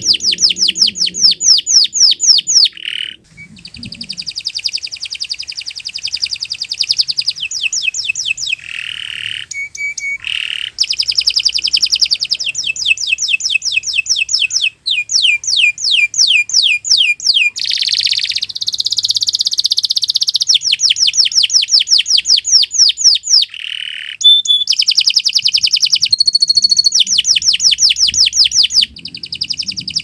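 Domestic canary singing a long, continuous song of trilled phrases: runs of fast repeated notes that change to a new phrase every few seconds, with short breaks about three seconds in and midway.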